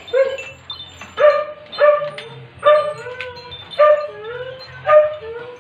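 A dog barking in about six short, high yips roughly a second apart, with a whine rising and falling between the barks midway.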